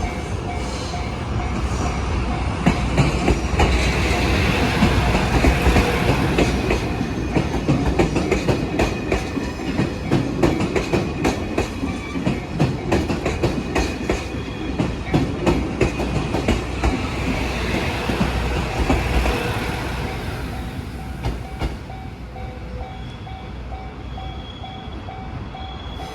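JR East GV-E197 series diesel-electric train passing over a level crossing: engine rumble and a dense clatter of wheels over rail joints, building up over the first few seconds and fading after about 20 seconds. A level-crossing warning bell rings in a steady repeating pattern, heard most clearly once the train has gone.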